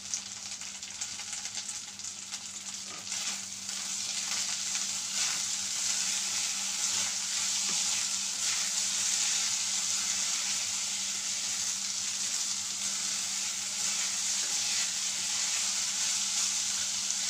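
Rice frying in ghee with whole spices in a kadhai, a steady sizzle, with a wooden spatula stirring and scraping through the grains. The sizzle grows louder a few seconds in as the stirring begins. This is the dry-frying stage before the water goes in.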